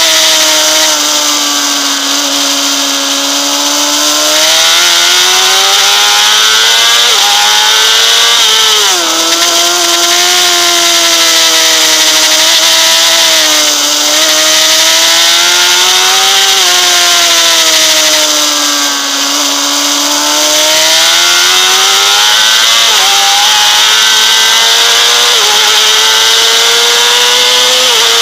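Honda CBR600RR's inline-four engine running high in the rev range. Its pitch climbs under acceleration and drops sharply several times as gears change and the bike brakes for corners, with a steady rush of wind over the bike.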